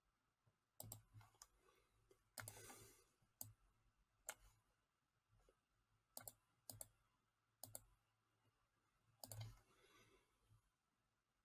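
Faint computer mouse clicks, about a dozen scattered irregularly, several in quick pairs, with a short rustle of handling after two of them, as slides are clicked through.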